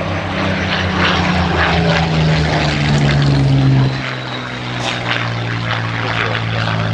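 Supermarine Spitfire's V12 piston engine running as the fighter flies past overhead. The engine note falls in pitch over the first four seconds, then drops in level and holds steady.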